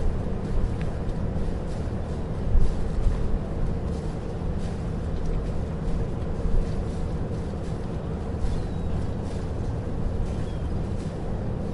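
Harbor ambience carried by a boat engine running at a steady low drone, with faint ticks and knocks over it.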